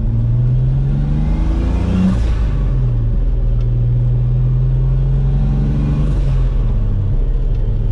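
Turbocharged M52 inline-six of a BMW E30, heard inside the sound-deadened cabin while accelerating: revs climb, fall at a gear change about two seconds in, hold steady, then climb briefly and fall again about six and a half seconds in.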